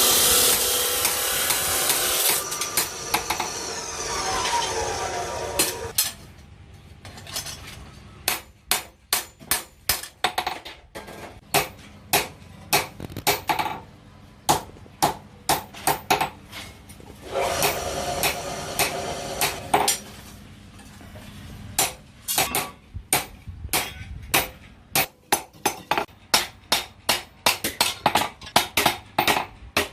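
Hand hammer striking steel on an anvil in runs of quick, ringing blows, as a knife blade is forged. In the first seconds a power tool is running, its pitch falling as it winds down, and it stops about six seconds in; it runs briefly again about two-thirds of the way through.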